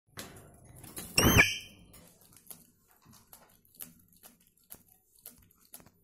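Alexandrine parakeet giving one short, loud squawk about a second in, followed by faint scattered clicks and taps.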